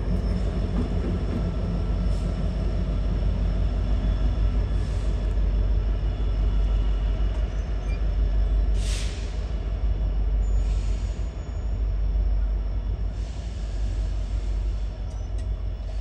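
Norfolk Southern manifest freight train rolling past a grade crossing: a steady, heavy low rumble of locomotives and cars on the rails. Brief hissing bursts come in about nine seconds in, again around eleven, and from about thirteen to fifteen seconds.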